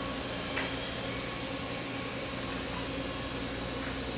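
Steady background hum of a workshop, with a faint metallic click about half a second in as the steel two-piece retaining nut is turned by hand onto the vise's lead screw.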